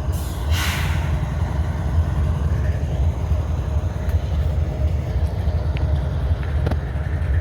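Diesel locomotive idling, a steady low rumble, with a short hiss of air about half a second in.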